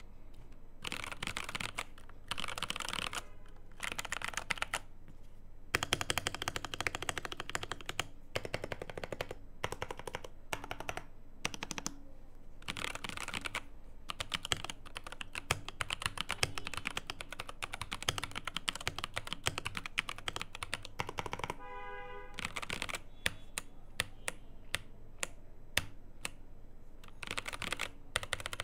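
Ajazz AK870MC mechanical keyboard being typed on in a sound test: a few short bursts of keystrokes, then a long run of fast, continuous typing. The board is typically fitted with a tape mod and foam/polyfill fill against hollowness at this point.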